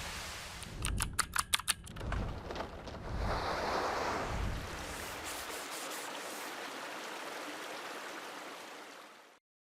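Intro sound design: a steady rushing hiss like running water, with a quick run of about seven sharp clicks a second in and a few low pulses. The hiss fades out near the end.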